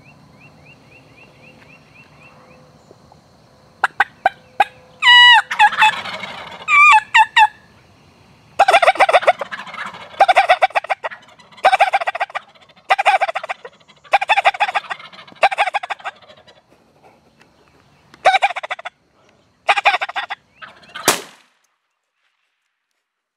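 Wild turkey toms gobbling: a run of about six gobbles roughly a second and a half apart, then three more. Before them come sharp clicks and a few loud calls that swoop in pitch.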